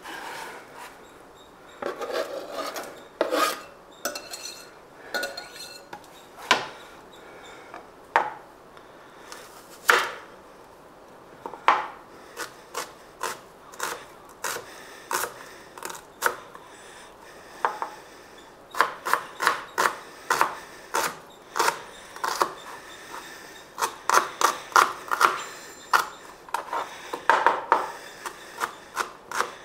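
Kitchen knife chopping onions on a cutting board: scattered single cuts at first, then quick runs of several chops in a row in the second half.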